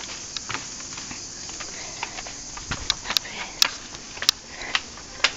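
Footsteps clicking and scuffing irregularly on stone steps and paving, over a steady high buzz of cicadas.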